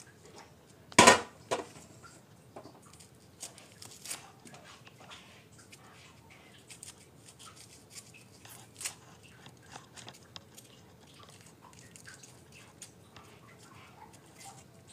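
A kitchen knife peeling shallots by hand: a string of small crackles and ticks as the papery skins are scraped and torn off, with one sharp knock about a second in.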